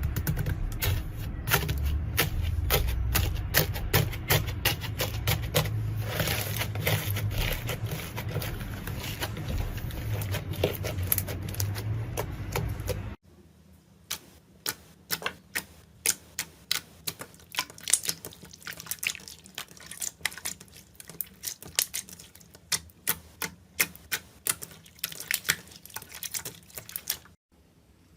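Slime being squished and pressed, giving a dense run of crackling clicks over a low rumble that cuts off abruptly about 13 seconds in. After the cut come quieter, sparser sharp clicks and pops, a few a second.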